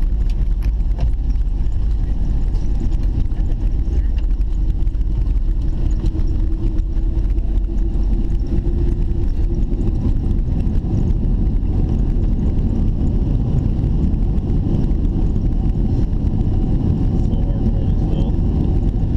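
Airliner cabin noise while the plane rolls along the ground after landing: a steady low rumble of engines and wheels, with a faint hum that fades about ten seconds in.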